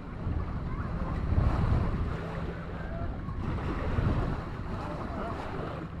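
Wind buffeting the microphone, gusting strongest about a second and a half in and again about four seconds in, over small waves lapping on a sandy shore. Beachgoers' voices are faint in the background.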